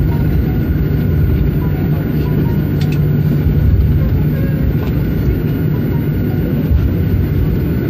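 Airliner cabin noise as a Boeing 737 rolls along the ground after landing: a steady low rumble of the engines and the wheels on the pavement, with a faint steady whine over it.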